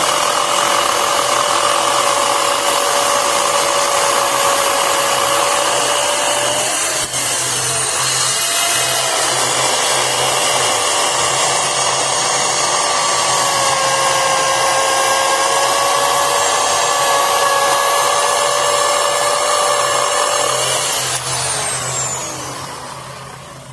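Craftsman 16-inch 12-amp corded electric chainsaw running at full speed with a steady high whine while cutting through a log. About seven seconds in the motor briefly slows and spins back up, and near the end it winds down as the trigger is let go.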